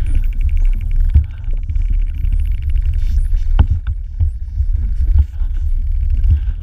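Spotted dolphins heard underwater: a rapid echolocation click train for the first three seconds, used to scan a nearby object, then a few louder single clicks past halfway, with faint whistles. A steady low rumble sits under it all.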